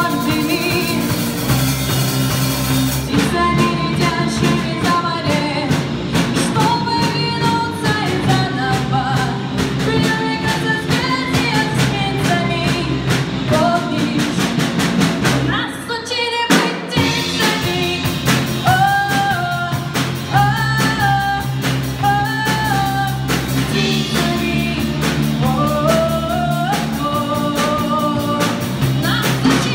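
A song: a singer's voice over a band with drums and guitar keeping a steady beat. The accompaniment drops out briefly about sixteen seconds in, then the song carries on.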